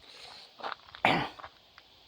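A person's short cough about a second in, with faint rustling before it.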